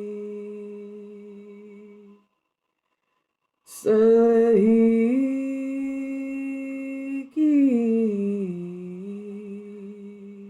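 A person's voice humming long held notes for sound healing. The first note fades out and there is a breath-length pause about two seconds in; then a higher note is held for about three seconds, breaks, and slides down into a lower held note.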